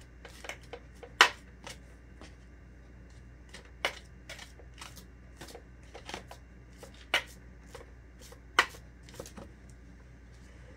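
Spatula working cold frosting into a plastic cake stencil: irregular small clicks and scrapes of the blade against the plastic, with a few sharper taps standing out.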